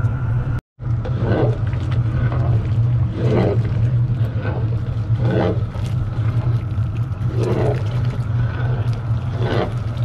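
Steady low roar of the burner heating a big cast-iron stew kettle. A soft swish comes every second or two as a wooden paddle stirs the thick, simmering Brunswick stew. The sound drops out for an instant under a second in.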